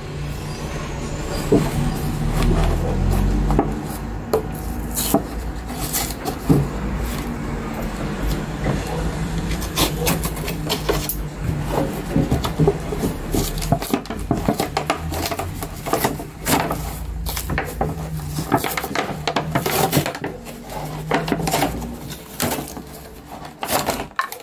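Cardboard doll box being opened and handled: rubbing and scraping of cardboard with many small clicks and taps as the box is opened and its cardboard tray slid out.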